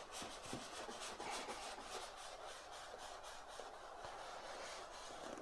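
Faint rubbing and light scraping of a cardboard box being handled and turned over, with a few soft knocks.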